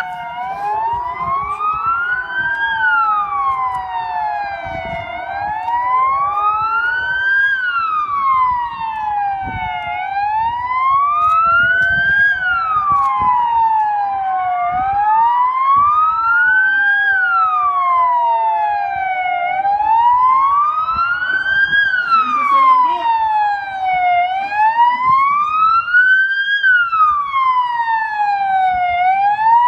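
Emergency vehicle sirens wailing loudly in slow rises and falls, each cycle taking about five seconds, with two wails crossing out of step. A low rumble of traffic or wind sits underneath.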